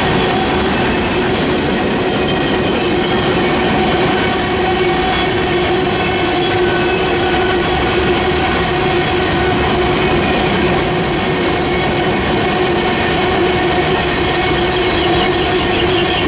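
Freight train cars rolling steadily past at close range: a continuous loud rumble of wheels on rail, with steady whining tones from the wheels running through it.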